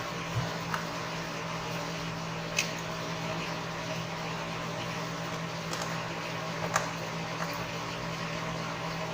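Steady fan-like hum with a few light, sharp clicks of small tools and parts being handled while a smartphone is taken apart.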